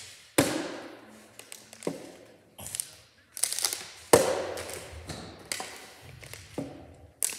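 Partly filled plastic water bottle being flipped and landing on a wooden tabletop: a series of sharp thuds and taps as it hits and tips over, the loudest a little past four seconds in.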